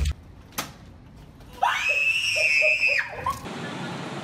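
A person's shrill, wavering scream lasting about a second and a half, preceded by a short click.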